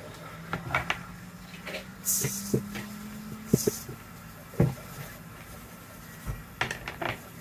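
Small clicks, taps and knocks of hand tools and small objects being handled on an electronics workbench, with two brief hisses about two and three and a half seconds in and a faint low hum through the first half.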